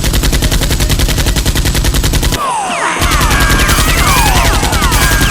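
Rapid automatic gunfire sound effects, a steady stream of shots that breaks off briefly about two and a half seconds in, then resumes with many short falling whistles over it.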